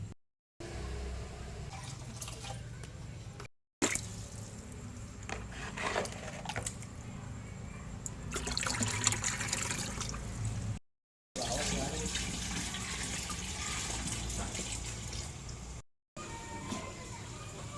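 Kitchen water sounds: water running and splashing with small knocks and clinks of kitchenware, in several short clips cut together with brief silent gaps between them.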